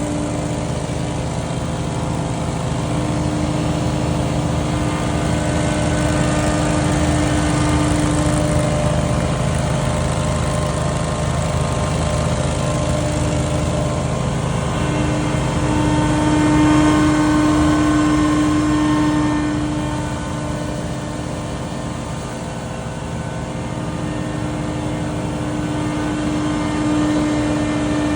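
Scag Windstorm stand-on debris blower running hard, its engine and fan making a loud, steady drone with a strong, even whine. The sound swells a little about two-thirds of the way in, then eases off.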